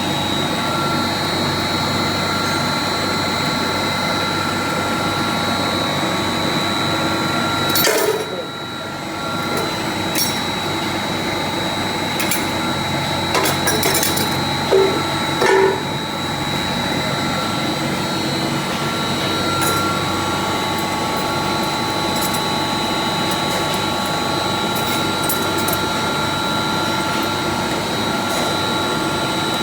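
A steady machine drone with a constant whine. Short metallic clicks and taps come about 8 seconds in and again in a cluster a few seconds later.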